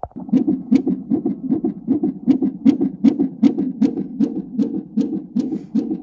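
Cardiotocograph (CTG) Doppler monitor playing the unborn baby's heartbeat through its speaker: a fast, even pulse of about two and a half beats a second.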